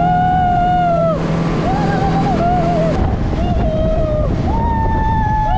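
Speedboat passengers whooping with excitement: several long, high cries of about a second each. Underneath is a steady rush of wind and water from the boat running fast under its Yamaha outboard motor.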